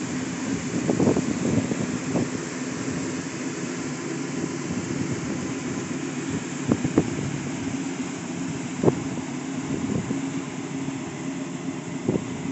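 1971 Chevrolet C10 pickup's engine idling steadily, with a few short, sharp knocks over it, the loudest about nine seconds in.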